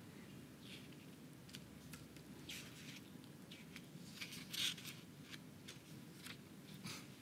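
Faint, irregular clicks and taps of a computer keyboard and mouse being operated during data entry, over a low steady hum, with one louder tap about four and a half seconds in.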